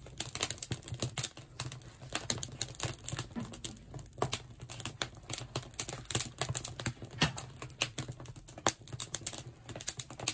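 Split oak firewood crackling in the fireboxes of a wood-fired salt kiln: a dense run of irregular sharp snaps and pops over a low steady hum.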